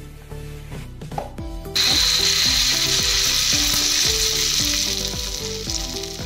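Poha pancake batter hitting hot oil in a small non-stick kadhai. It starts sizzling loudly and suddenly about two seconds in and keeps frying steadily.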